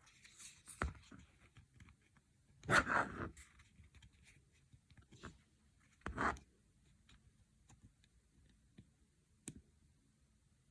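Handling noise from a Nokia 6610 mobile phone: a few scattered sharp clicks, with a louder rustling scrape about three seconds in and another near the middle.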